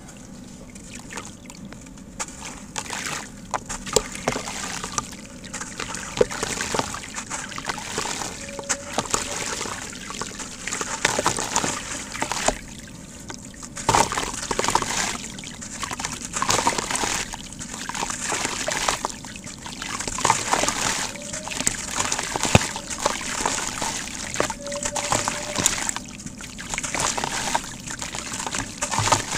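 Sand-cement block soaked in a tub of water and crumbled by hand: gritty, crunching breaks and crackles mixed with water sloshing and splashing. The sounds come in irregular bursts with short pauses between them.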